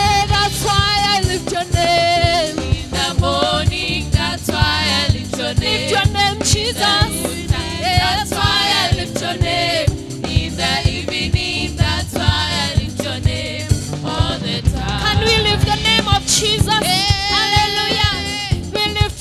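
Live gospel praise singing: a woman leads on a microphone with backing singers joining, over instrumental accompaniment with a steady beat.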